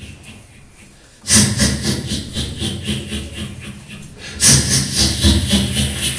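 Beatboxing: rhythmic bass and hissing vocal percussion that starts suddenly about a second in and swells louder again about four seconds in.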